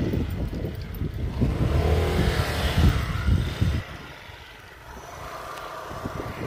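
A motor vehicle passing close by, its engine note rising and then falling in pitch, mixed with wind buffeting the microphone; about four seconds in it fades to a quieter background hum.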